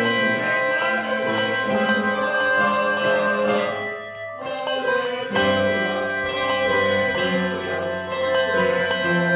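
Handbell ensemble playing a piece, many bells ringing together in sustained chords. The sound dips briefly about four seconds in, then a fresh chord is rung.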